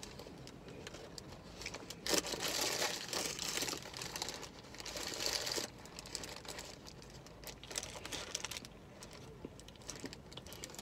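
Paper fast-food bag and burger wrapper crinkling and rustling as a hamburger is taken out and unwrapped. The rustling is loudest from about two seconds in until a little past halfway, then gives way to softer, scattered rustles.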